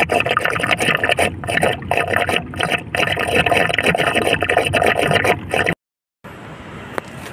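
Water spraying and gurgling hard from a strongly leaking joint in a buried blue PVC water pipe, close to the microphone. It cuts off suddenly near the end, leaving a fainter steady background noise.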